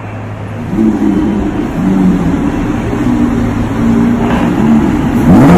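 Lamborghini supercar engine running at low revs with a shifting note, then revving sharply upward near the end.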